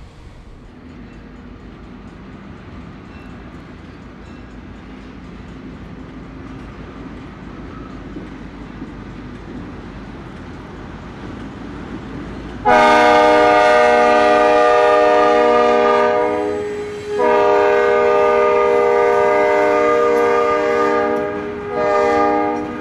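A diesel freight train rumbles, growing slowly louder, then the EMD GP10 locomotive's air horn sounds a loud chord in long blasts, twice, and again near the end.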